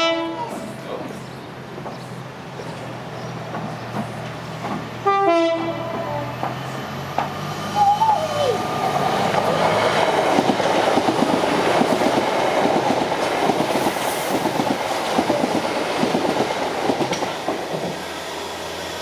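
Class 455 electric multiple unit sounding a short horn blast about five seconds in, then passing close by from about eight seconds on, with a steady rush of wheels clicking over the track.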